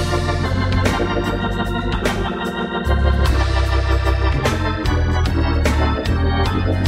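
Hammond console organ playing a gospel tune: sustained full chords over a deep bass line, changing every second or so, with a crisp click at the start of each chord.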